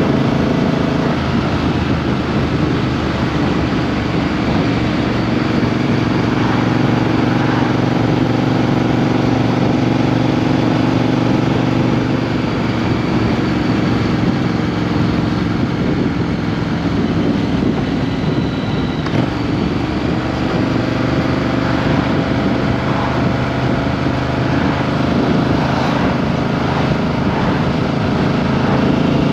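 Triumph Street Twin's 900 cc parallel-twin engine running under way, heard close from beneath the seat over wind and road noise. Its revs dip slightly around the middle and climb again in the second half.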